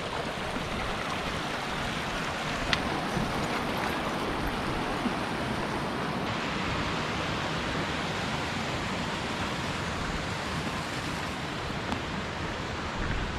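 Mountain stream rushing steadily over rocks, an even, unbroken wash of water noise.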